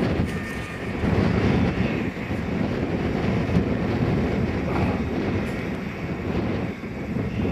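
Strong, gusty wind buffeting the microphone: a loud, uneven low rumble that surges and dips.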